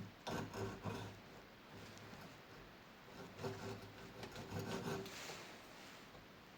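Faint rubbing and creaking of a tool working on a seized derailleur jockey-wheel bolt, in two bursts, the first about a second long and the second nearly two seconds long, with a low hum under each.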